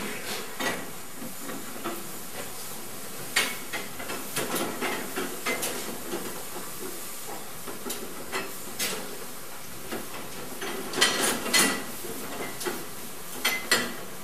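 Steady hiss with scattered sharp clicks and knocks, bunched about eleven seconds in, from goats shifting and bumping at a metal feeding rail.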